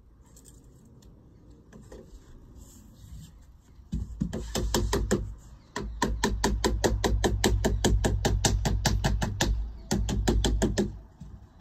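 Rapid hammering, about five sharp blows a second, starting about four seconds in and going in runs of a few seconds with short pauses.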